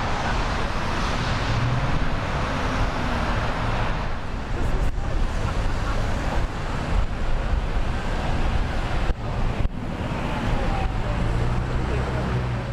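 Steady road and vehicle noise with a low engine rumble, changing abruptly a few times.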